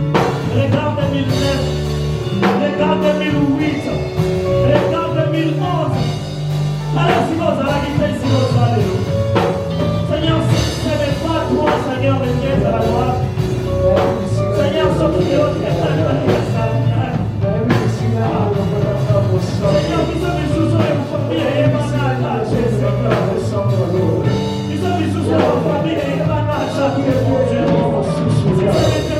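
Live worship band music with a steady drum beat and bass.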